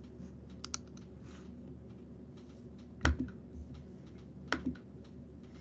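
Computer keyboard and clicks: scattered soft keystrokes, with two louder knocks about three and four and a half seconds in.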